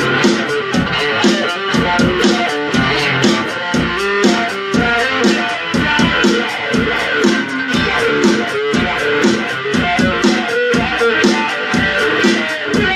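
Guitar music: quick, steadily repeated plucked or strummed notes with a changing melody line and a steady beat.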